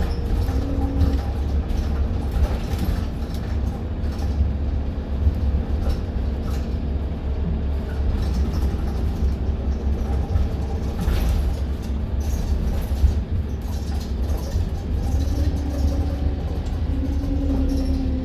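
Interior noise of a bus underway: steady low rumble from the engine and road, with a droning engine and driveline tone whose pitch steps up near the end as the bus gathers speed.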